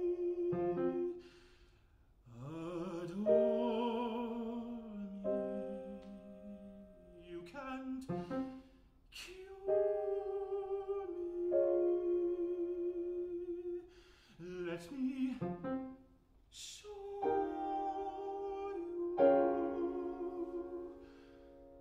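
Classical art song performed live: a male voice singing with vibrato over grand piano accompaniment, in phrases with short breaths between them.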